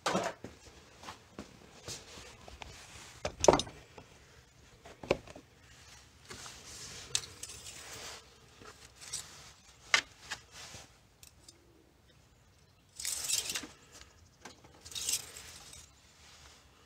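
Handling noises in a car's engine bay while the engine oil is checked with the dipstick: scattered clicks and knocks, a few sharper knocks in the first five seconds, and two short rustling noises near the end.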